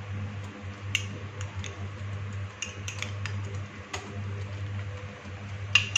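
Metal spoon clinking and scraping against a small glass bowl as ghee is scooped out, a scattering of light clicks with the sharpest near the end, over a steady low hum.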